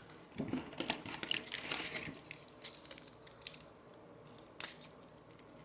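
A trading-card pack's plastic wrapper being crinkled and torn open by hand, a dense run of crackles for about two seconds, then scattered crinkles with one sharp, louder crackle near the end.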